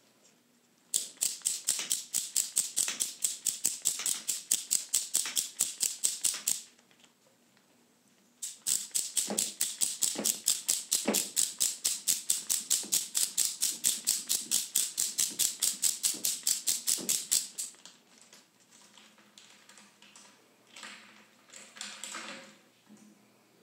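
Ratchet wrench driving a small tube cutter around a copper tube, its pawl clicking rapidly and evenly, about six clicks a second, in two long runs with a short pause between. Near the end come a few fainter, uneven clicks as the tool is handled.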